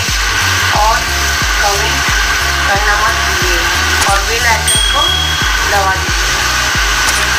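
Background music with a steady beat and a stepping bass line, over a steady hiss of grated onions sizzling in hot oil.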